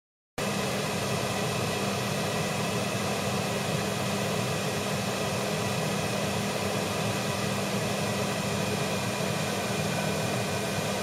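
Steady fan hum and hiss, with a low hum underneath, cutting in suddenly about half a second in after dead silence.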